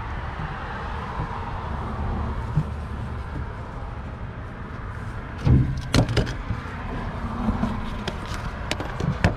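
Close handling noise and knocking around a belt-off accessory drive as a loose belt tensioner pulley is worked by hand, with two loud knocks a little over halfway through and a few sharp clicks near the end; the pulley has play in it.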